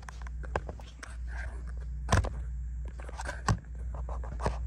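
Handling noises: several sharp clicks and knocks, the loudest about two seconds in, over a steady low hum.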